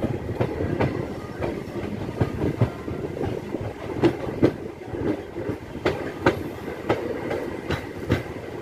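Wheels of a MEMU electric multiple-unit train clacking over rail joints, in pairs about every two seconds, over the steady rumble of the coach rolling on the track as it pulls into a station.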